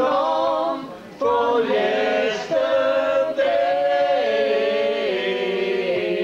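A man singing unaccompanied in full voice, with long held notes and a short breath pause about a second in.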